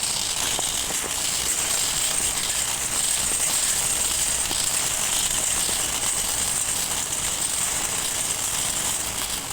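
System Sensor SpectrAlert Classic fire alarm horn sounding, a harsh, steady buzz without pauses.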